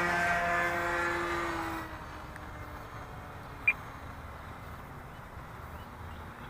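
RC airplane's OS .91 FX two-stroke glow engine at high throttle, fading into the distance with its note sinking slightly after a high-speed pass, gone by about two seconds in. Then only faint background, with one short sharp click near the middle.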